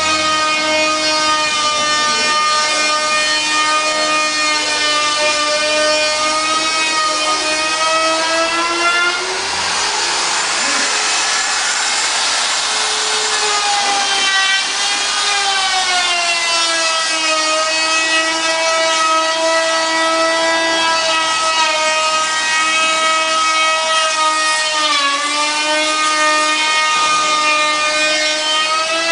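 A loud, continuous droning whine with many overtones, its pitch wavering slowly, rising and turning rougher for a few seconds about a third of the way in and dipping briefly near the end: the persistent noise complained of in a hotel room.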